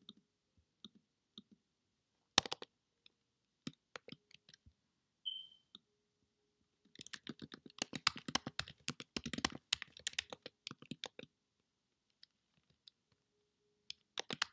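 Computer keyboard typing: a few separate keystrokes at first, then a fast run of steady typing in the middle, and a few more keys near the end.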